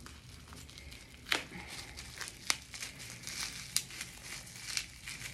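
Plastic wrapping crinkling as it is handled and pulled open by hand, with several sharp crackles about a second apart.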